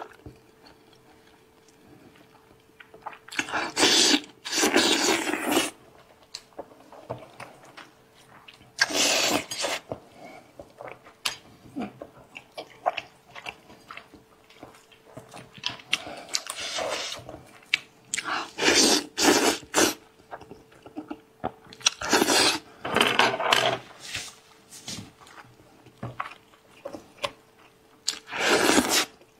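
Close-miked eating of a spiced sheep's head: biting, crunching and chewing meat from the bone in irregular loud bursts of a second or two, with quieter stretches between.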